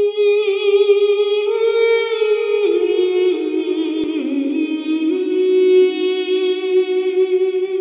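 A single voice singing a slow, sustained melody without accompaniment, with vibrato. Its pitch steps down about a third of the way in and rises again past the middle.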